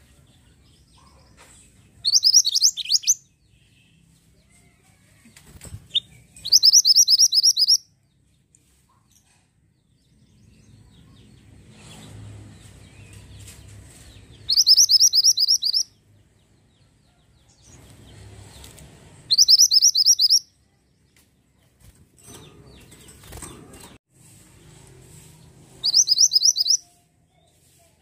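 Caged minivet (mantenan) singing: five short bursts of rapid, high-pitched twittering notes, each about a second long, spaced several seconds apart.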